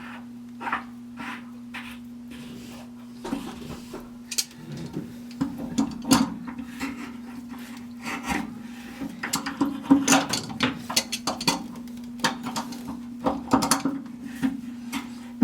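Irregular scraping, rubbing and clicking of hands and tools on fittings as the drain valve is put back into a water heater, over a steady low hum.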